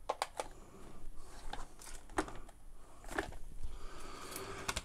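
Scattered plastic clicks and knocks from a toy RC monster truck and its handheld controller being handled and set down on a desk.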